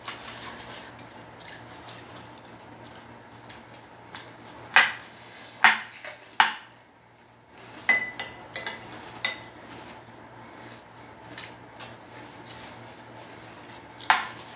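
Metal spoon scraping and clinking against an aluminium-foil tray of rice and chicken. There are scattered sharp clinks, the loudest three together about five to six and a half seconds in, then a quick run of ringing clinks around eight to nine seconds and one more near the end.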